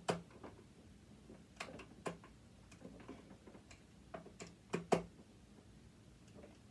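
Screwdriver clicking and scraping against a stuck screw in a sewing machine's metal frame: scattered sharp clicks in small clusters, the bit slipping as the screw head strips. The clicks stop about five seconds in.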